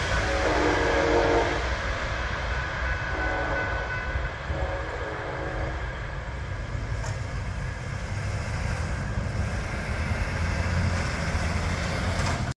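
Distant horn of a receding Amtrak train's Siemens SC-44 locomotive: a long blast, a short one, then another long one. A steady ringing from the grade-crossing signal stops about four and a half seconds in, over a low rumble of the departing train and road traffic.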